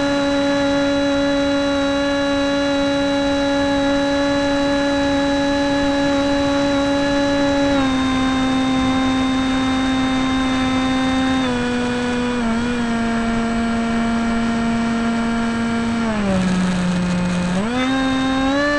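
Profile Draken RC model plane's motor heard from on board in flight: a steady high-pitched drone that steps down in pitch twice as the throttle is eased, drops lower about sixteen seconds in, then winds back up near the end.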